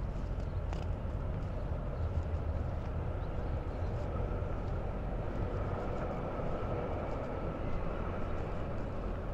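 Steady low rumble of a large engine running, with a humming tone that swells about halfway through and eases off near the end.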